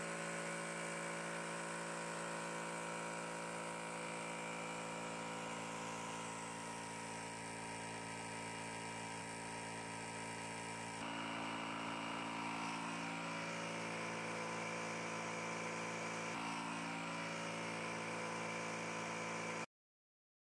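Benjamin PCP air compressor running steadily while it fills a PCP air rifle's air reservoir to about 300 bar. Its even hum shifts slightly about halfway through and cuts off abruptly about a second before the end.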